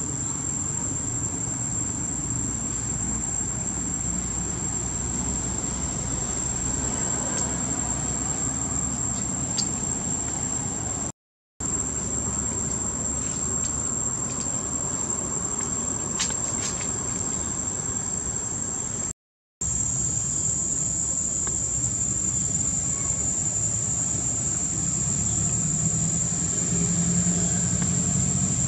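Steady high-pitched insect drone over a low steady hum. The sound cuts out completely for a moment twice, about a third and two thirds of the way through.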